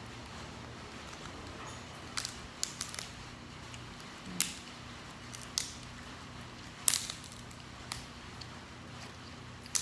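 Eating sounds: a scattered series of short, sharp wet smacks and clicks, about eight over the span, as someone eats stir-fried noodles. A steady low hum runs underneath.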